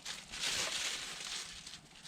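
Burning firewood hissing as sap boils out of it, with a few faint crackles; the hiss swells about half a second in and fades away.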